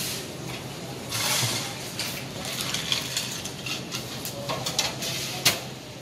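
Rustling and light clattering of objects being handled, with a sharp click about five and a half seconds in, over a faint steady hum.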